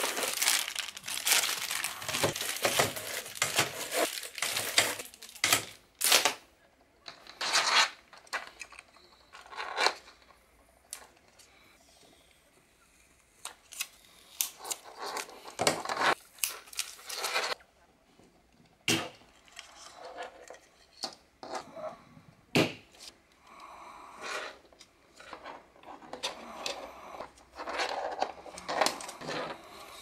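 Plastic packaging bags crinkling as white 120mm ARGB case fans are pulled out of their box and unwrapped: dense crinkling for the first several seconds, then intermittent crinkles. After that come scattered sharp clicks and rubbing as the plastic fan frames and their cables are handled and a hub sticker is peeled off.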